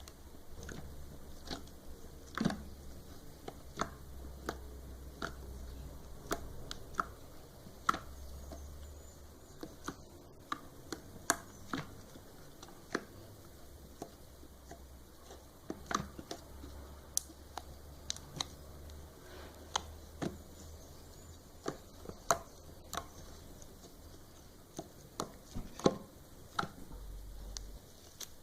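Slime being squished and poked by hand, giving irregular sticky clicks and pops, roughly one or two a second, over a faint low hum.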